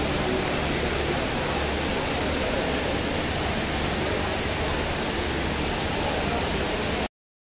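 The Dubai Mall's multi-storey indoor waterfall rushing: a steady, loud hiss of falling water that cuts off abruptly near the end.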